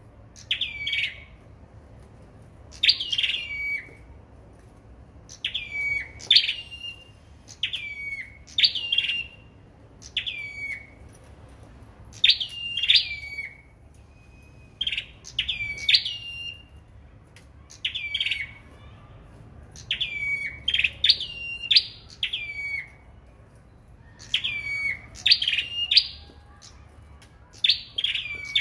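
Caged sâu đầu đỏ songbirds singing against one another in a song duel: short, high, sharp chirping phrases, each a quick sweep in pitch, repeated every second or two.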